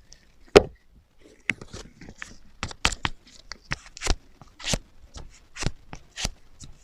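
Kitchen knife cutting through eggplant onto a cutting board. There is one loud chop about half a second in, then a run of crisp cuts, roughly two a second.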